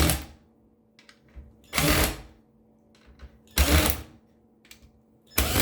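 Monitor parts being handled during a teardown: three short scraping, rustling bursts about two seconds apart, with small clicks of plastic and metal between them.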